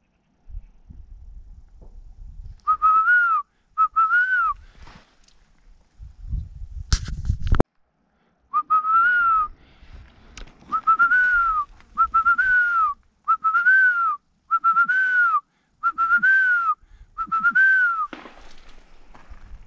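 A person whistling close by: a series of short, breathy notes, each rising then falling, twice and then eight times in an even rhythm about every second and a half. A loud bump of handling noise about seven seconds in.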